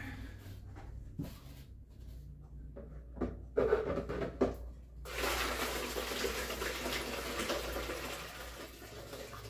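Berry mash pouring from an aluminium stock pot through a funnel into a glass jug: a steady splashing pour that starts about halfway through, after a few knocks.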